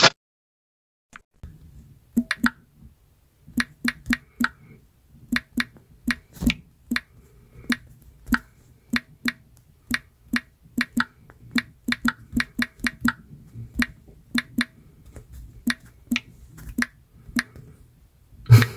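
Typing on a phone's touchscreen keyboard: a string of short taps, about two or three a second, over a faint low rumble. A louder sharp sound comes at the very start and again just before the end.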